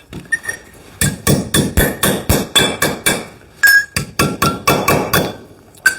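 Hammer tapping on metal: a fast run of quick, ringing strikes that starts about a second in, pauses briefly midway and stops near the end.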